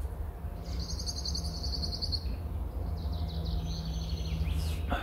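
A small songbird singing two rapid, high trills, each about a second and a half long, over a steady low rumble.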